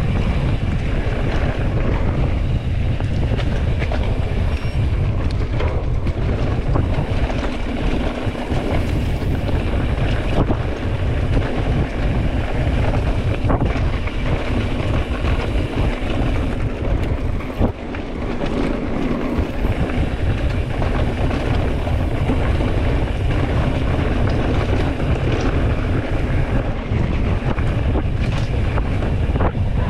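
Wind buffeting the microphone in a steady, loud rumble, with a brief drop about 18 seconds in.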